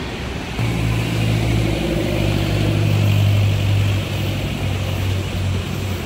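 An engine running with a steady low drone that comes in about half a second in and holds, over street traffic noise.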